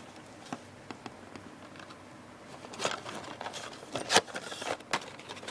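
Cardboard parts box being opened by hand: a few faint clicks, then from about three seconds in a run of crinkling and scraping with several sharp snaps of the packaging.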